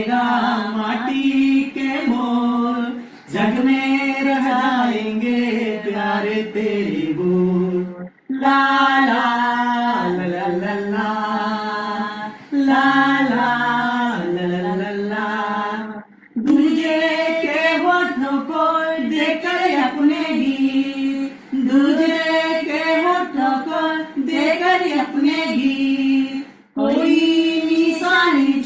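A man and a woman singing a song without accompaniment, the woman repeating lines after the man in sung phrases a few seconds long with short breaks between them.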